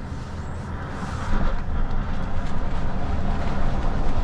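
In-cab noise of a Nikola electric semi truck accelerating hard from about 10 to 30 mph: a low rumble of tyres and road with no engine note, getting louder about a second in as speed builds.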